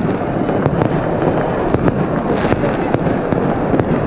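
Fireworks and firecrackers going off in rapid, irregular cracks and bangs over a dense, steady din.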